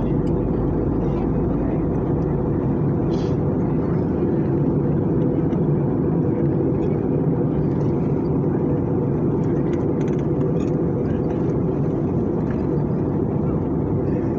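Steady roar of a jet airliner's cabin during descent: engine hum and airflow noise with a low drone, and a few faint clicks.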